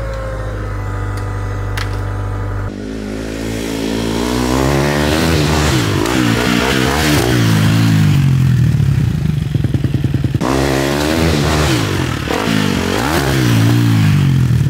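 Motocross bike engine: a steady low idle, then the bike riding off with its revs climbing and dropping over and over as it accelerates and shifts up.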